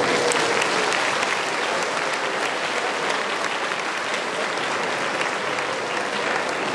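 Audience applauding, a large crowd clapping steadily.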